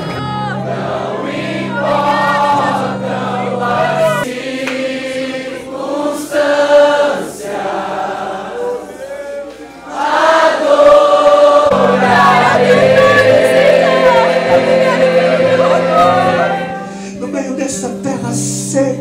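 Christian worship song: group singing over instrumental backing with held bass notes, which drop out for several seconds in the middle before coming back.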